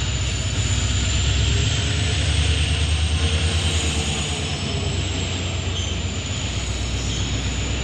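WDP-4D diesel-electric locomotive, with its EMD 16-cylinder two-stroke engine, hauling a passenger train away under acceleration. A deep, steady humming rumble runs with a thin high whine above it, louder and pulsing a little around the middle as the train rolls past.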